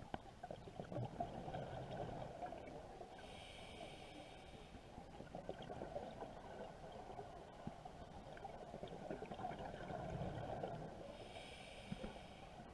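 Scuba regulator breathing recorded underwater: twice, a low bubbling exhalation is followed by a hissing inhalation. Faint clicks run underneath.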